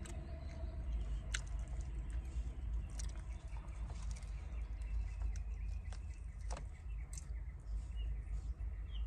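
Close-up chewing and crunching of crispy fried chicken, with scattered crisp clicks over a steady low wind rumble from the open car windows.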